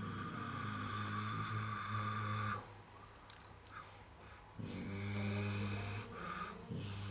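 Imitated engine rumble for a toy Lego loader-tractor as it works: a low, rough, steady hum that stops after about two and a half seconds, pauses for about two seconds, then starts again and runs in short spells to the end.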